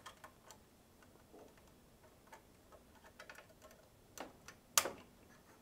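Small brass parts of a model steam locomotive's cab clicking and tapping as the removable footplate floor section is slid and seated back in place, with two sharper clicks a little over four seconds in, the second the loudest.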